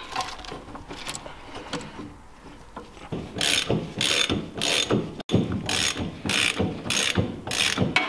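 Hand ratchet wrench turning a nut on the rear axle: quiet fiddling for about three seconds, then about eight ratcheting strokes, roughly two a second, as the nut draws the tight-fitting axle into the hub.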